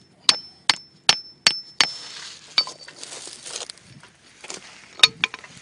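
A hammer strikes a steel Edgetite spike, driving it through paver edge restraint. Five quick ringing blows come about 0.4 s apart, then a lighter tap, then two more blows near the end.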